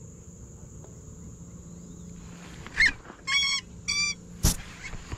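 Insects droning steadily at one high, even pitch. Partway through, a bird gives a short rising call and then two short harsh, nasal calls, and a single sharp knock follows about four and a half seconds in.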